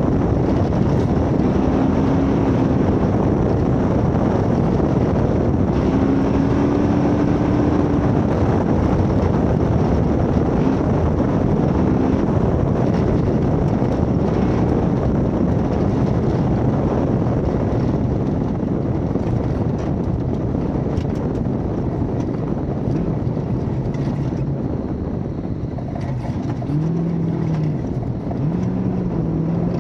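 1972 Ford Bronco race truck driving at speed, its engine running under load amid steady road and wind noise. Near the end it eases off briefly twice, then picks up again.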